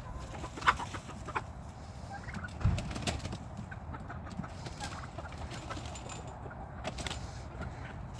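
Backyard poultry flock calling: chickens clucking and turkeys gobbling in short, scattered calls, with a few sharp clicks and knocks among them.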